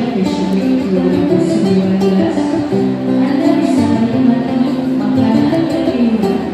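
Sape, the carved wooden boat lute of Borneo's Dayak people, plucked in a continuous melody of held notes.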